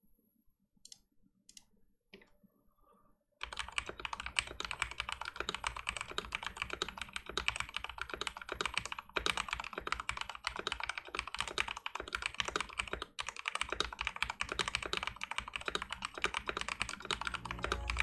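Fast typing on a Mountain Everest Max mechanical keyboard fitted with Cherry MX Speed Silver linear switches lubed with Krytox 205g0 and HyperX Pudding doubleshot PBT keycaps. A few single key presses, then from about three seconds in, a steady run of rapid keystrokes.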